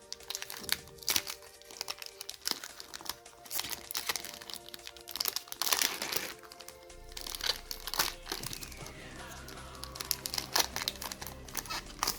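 Foil wrapper of a Pokémon trading-card booster pack crinkling and tearing as it is handled and opened by hand, in many quick irregular crackles, over background music.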